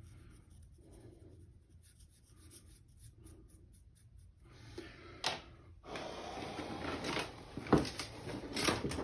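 Rubbing and scratching on the steel plane blade as its bevel is coloured in and handled: faint at first, then louder from about halfway with several sharp clicks and knocks.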